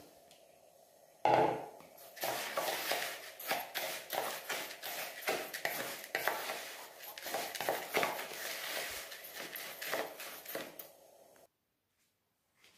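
A metal spoon stirring and scraping dry tapioca starch and salt around a plastic bowl: a quick, uneven run of scrapes and taps that stops near the end. A single sharp knock comes about a second in.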